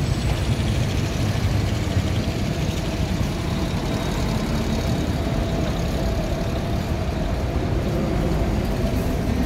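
City street traffic: vehicle engines running and idling in a steady low rumble, with no sudden events.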